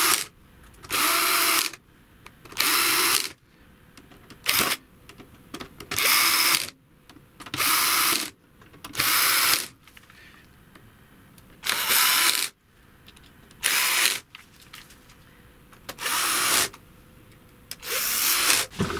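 Power screwdriver running in short bursts, about eleven of them roughly every one and a half to two seconds, driving screws to fasten the cover back onto the radio's case.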